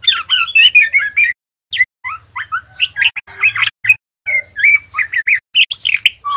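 Juvenile male white-rumped shama twittering in fast, gliding chirps, in runs of a second or two with brief pauses: the 'ngeriwik' chatter of a young bird learning to sing.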